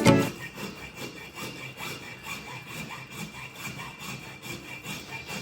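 Repeated back-and-forth rasping strokes, about four a second, like a hand tool working a hard surface.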